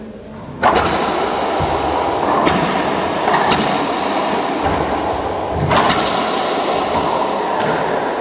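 Racquetball rally: the rubber ball cracking off racquets and the court walls in a string of sharp hits at irregular spacing, the first and loudest about half a second in, each ringing in the enclosed court.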